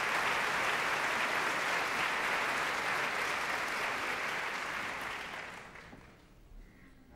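Theatre audience applauding, the applause dying away about five seconds in to near quiet.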